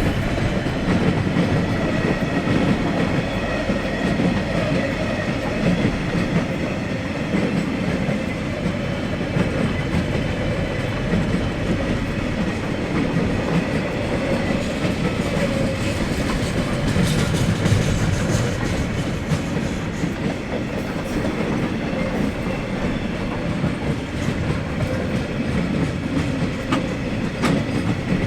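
Freight train wagons rolling past with a steady rumble. The wheels click over the rail joints a few times, most noticeably about two-thirds of the way through and near the end.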